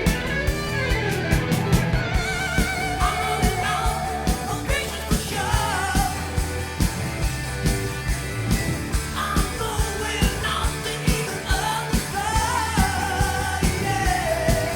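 Rock band studio recording playing: a steady drum beat and bass under a lead melody with a wavering vibrato.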